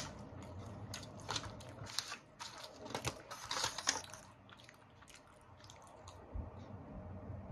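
Aluminium foil takeout tray crinkling and the sandwich's paper wrapper rustling as a fried chicken sandwich is lifted out and the tray picked up: a run of short sharp crackles, mostly in the first four seconds, fewer and fainter after.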